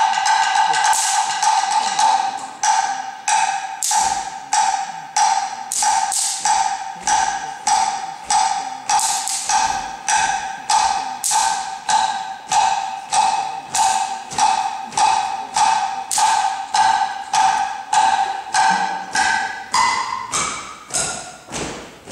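Percussion ensemble playing a steady beat of sharp struck strokes, about two a second, over a held ringing tone that slides up in pitch near the end.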